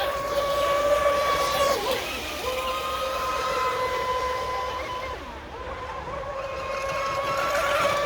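High-pitched whine of an electric RC racing boat's brushless motor running at speed. It holds a steady pitch, breaks briefly about two seconds in, and dips in loudness around five to six seconds.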